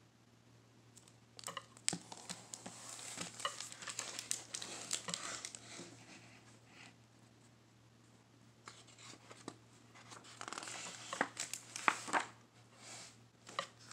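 Paper pages of a picture book rustling and flipping as the book is opened and leafed through, with small clicks of the pages and cover being handled, in two bouts with a short quiet pause between.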